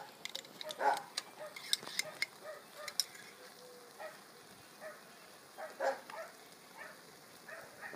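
Wood fire crackling under a cauldron, with a quick run of sharp clicks in the first three seconds and sparser short pops after.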